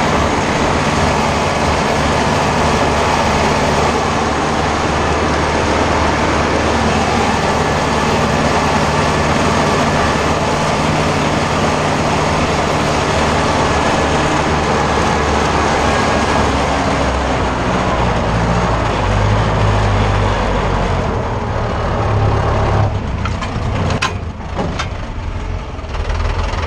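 Ursus tractor's diesel engine running steadily under way, heard close from the cab, with a wide rattling noise over it. Some way past the middle the engine note shifts, then the engine eases off, with a few knocks near the end.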